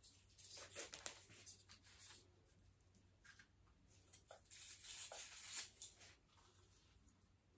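Faint rustling of an artificial Christmas tree's plastic branches and a garland as the garland is wound around the tree, a few soft rustles with near silence between them.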